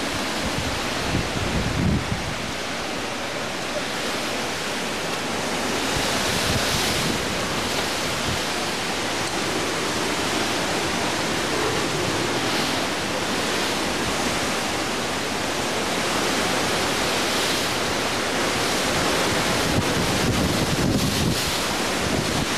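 Hurricane-force wind and driving rain blowing hard and steadily, rising in gusts every few seconds, with wind buffeting the microphone.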